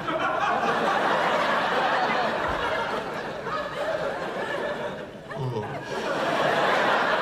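Live studio audience laughing at a punchline: a long laugh that dies down about five seconds in, then swells again.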